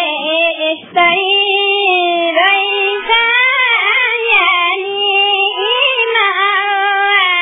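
A high-pitched voice singing a slow melody in long, wavering held notes, on a narrow-band, lo-fi music track.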